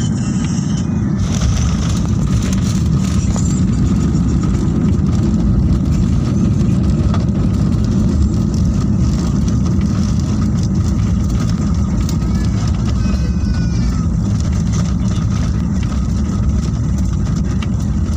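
Steady low rumble of an airliner's engines and airflow, heard from inside the passenger cabin as the plane taxis.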